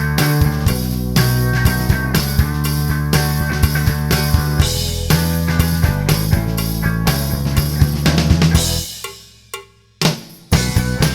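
Background rock music with a steady drum-kit beat over bass and guitar; it fades out about nine seconds in and comes back a second or so later.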